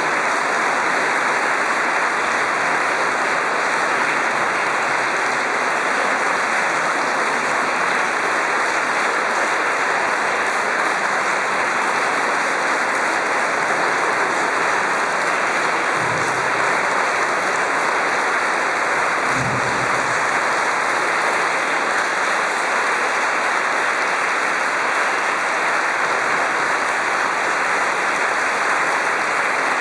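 Audience applauding: dense, continuous clapping that holds steady throughout.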